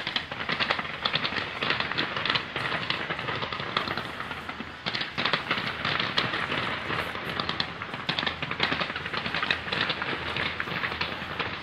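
Fireworks display: a dense, continuous crackle of rapid bangs and pops, with the thickest volleys at the start and about five seconds in.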